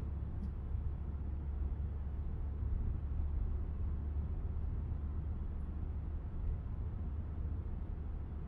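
Steady low rumble of a car driving at cruising speed, road and engine noise heard from inside the cabin.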